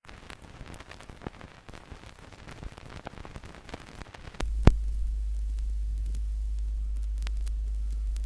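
Surface noise of an old optical film soundtrack: scattered crackle and pops, then about four seconds in a steady low hum comes in with a loud pop just after it and holds.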